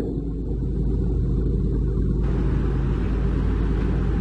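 Heavy diesel engines of construction machinery idling: a steady low rumble. The background changes about two seconds in.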